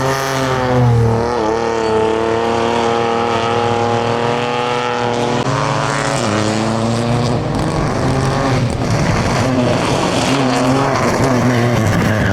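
Rally car engine at high revs: the pitch holds steady for about five seconds, then drops and swings up and down through gear changes and throttle lifts as the car passes.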